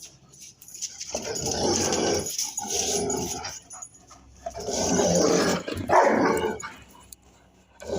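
Rottweiler growling in four long, drawn-out bouts, each about a second or more.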